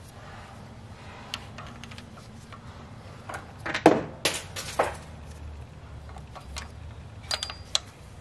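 A few sharp metallic clinks and knocks of tools and engine parts being handled, bunched about four seconds in and again near the end, over a low steady hum.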